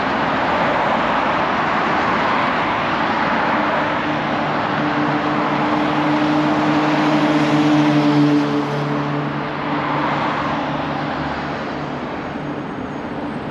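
Road traffic passing through a busy intersection: a steady wash of tyre and engine noise, with one vehicle's engine hum swelling from about five seconds in, loudest near eight seconds, then fading.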